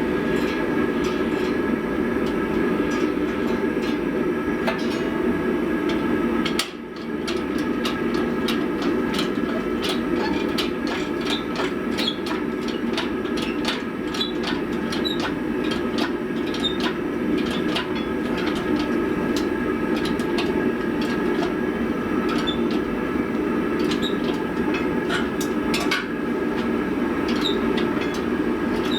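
Steady roar of forge and press equipment with several constant tones above it, and many light, irregular metallic clinks of steel being worked. A short break in the sound about seven seconds in.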